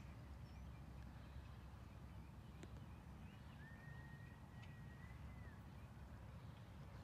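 Near silence: a faint, steady low outdoor rumble. About midway a faint high whistle is held for roughly two seconds, and there is a single faint click shortly before it.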